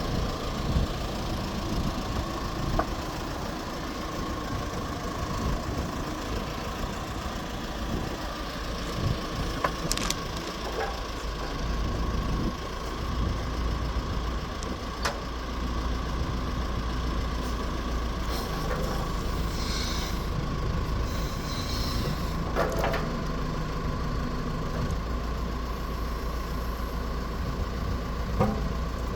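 Diesel engine of a Cat 436B backhoe loader running steadily, with a few sharp clanks from the machine. The engine sounds healthy.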